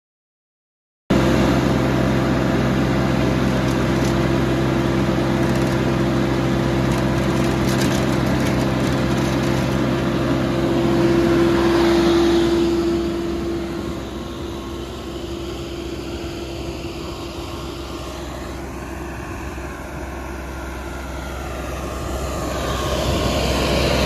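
Vermeer CTX 100 mini skid steer's engine running with a steady hum, starting abruptly about a second in. About halfway through the engine note drops and quietens, then climbs again near the end as the loader arms raise a full snow bucket.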